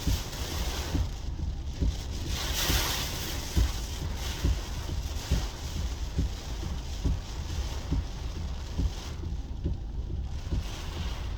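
Hurricane wind gusting against the microphone: a steady low rumble broken by frequent buffeting thumps, under a rushing hiss that swells about two to three seconds in and eases near the end.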